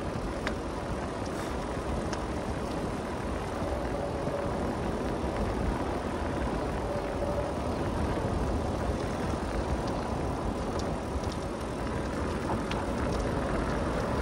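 Steady rush of wind over the microphone and tyre noise from a road bike being ridden along the highway.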